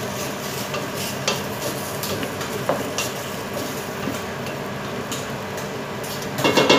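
Chopped carrots and sweet potato hissing as they cook in a little broth in a stainless steel pot, stirred with a wooden spatula that knocks lightly against the pot now and then. A louder clatter of pot and utensils comes near the end.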